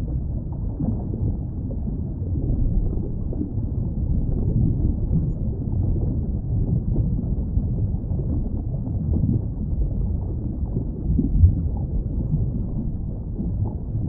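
Underwater ambience: a steady, muffled low rumble of moving water with nothing bright or high in it. There is one brief louder thump about eleven and a half seconds in.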